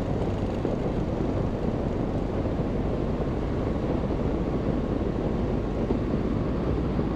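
Light-aircraft engine and propeller, a 100-hp Rotax 912ULS in a Zenith STOL CH701, droning steadily on low landing power as the plane floats just above the runway. Wind rushes over the microphone.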